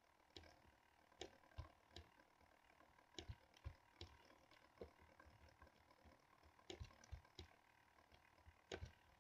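Near silence: room tone with faint, irregular clicks of a computer mouse and keyboard in use, about fifteen over the stretch.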